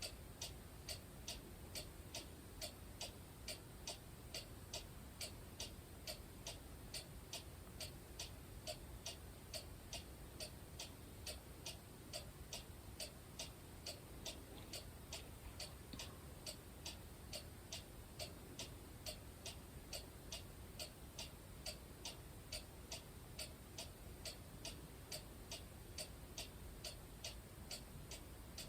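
Faint, steady ticking, about two ticks a second, evenly spaced, over quiet room tone.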